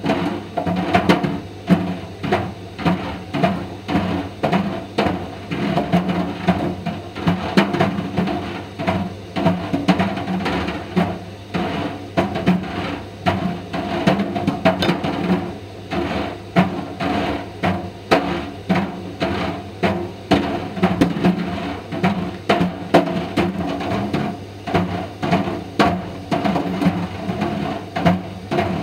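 Plastic Mister Steamy dryer balls knocking against the turning drum of an Indesit IDV 65 tumble dryer, several knocks a second, over the steady hum of the running dryer.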